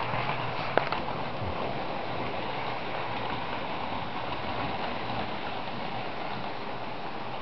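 Model railway trains running on the layout track: a steady whirring, rattling run of motors and wheels over rail joints, with one sharp click about a second in.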